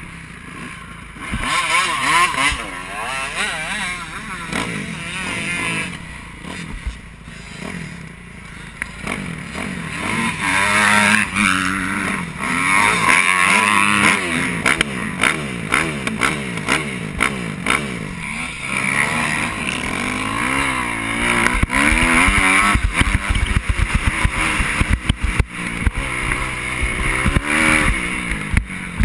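Motocross bike engine revving up and down again and again as it is ridden hard over a dirt track, heard from the bike's own camera with wind noise. In the second half it comes with frequent sharp knocks and clatter.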